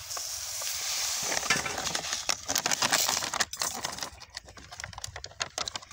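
A paper seed packet of onion seed being handled, with rustling and many small rattling clicks of seed; the rustle is most even in the first half and gives way to scattered clicks.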